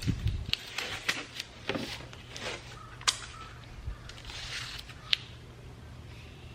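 Blue painter's masking tape being pulled off the roll in short rasping strips, with a few sharp clicks and a thump at the start as it is torn and handled.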